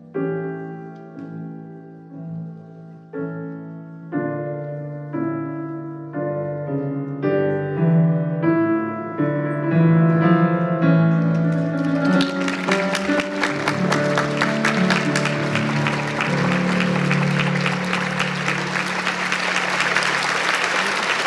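Piano music with a chord struck about once a second, building in loudness. About twelve seconds in, an audience breaks into applause, which goes on steadily while the piano fades beneath it.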